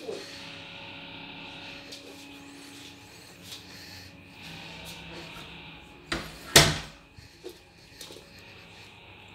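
An interior door being shut: two sharp knocks about half a second apart, the second louder.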